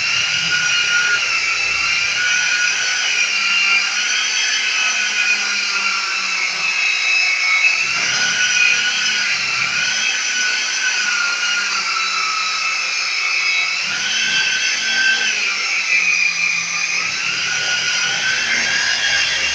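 Handheld electric round-pad sander running over a burnt-cement plaster wall finish, a steady high motor whine that slowly wavers up and down in pitch as the pad is pressed and moved over the wall.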